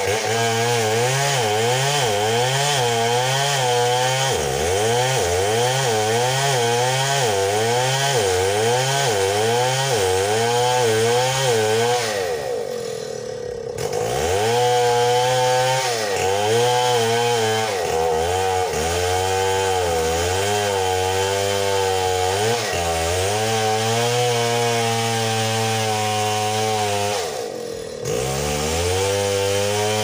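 Two-stroke chainsaw cutting into a tree under load, its engine note rising and falling about once a second as it bogs and recovers in the cut. The revs drop briefly twice, once near the middle and again near the end, before the saw is throttled back up.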